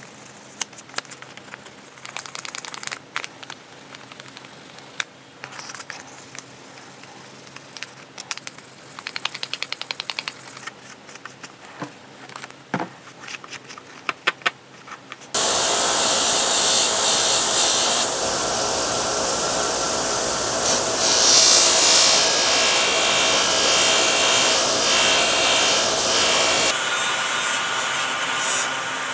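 Fine-grit wet/dry sandpaper rubbing by hand on the steel lever cap of a Stanley No. 5 plane, in quiet, irregular strokes, is heard first. About halfway in, a bench-grinder buffing wheel starts up suddenly and runs loud and steady while the lever cap is buffed against it. It drops a little in level near the end.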